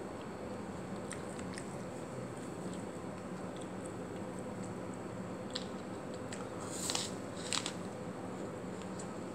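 Biting into a crisp raw apple: a crunch about seven seconds in and a second one just after, preceded by a few small mouth clicks.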